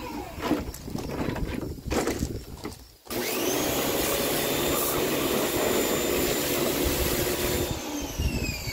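Old John Deere A16 pressure washer switching on suddenly about three seconds in, its motor and pump running steadily under the hiss of the spray for about four and a half seconds, then cutting off and whining down near the end. Before it starts, a few knocks as the unit is handled.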